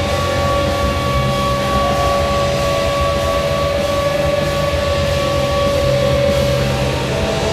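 New Jersey Devils goal horn: a steady, loud held horn tone over the heavy rock goal song.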